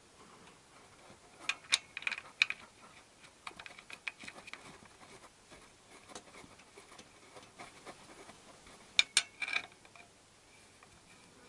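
Light metallic clicks and clinks of a hand and spanner working at bolts under a motorcycle engine, in two clusters, one about a second and a half in and one about nine seconds in, with faint scattered ticks between.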